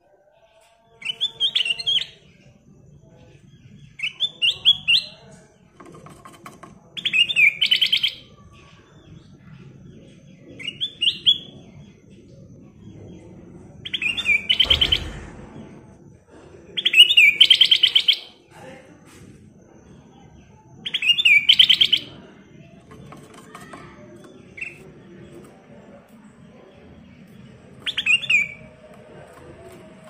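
Ruby-throated bulbul (kutilang emas) singing: short, rapid phrases of bright notes, each about a second long, repeated about every three seconds, nine in all.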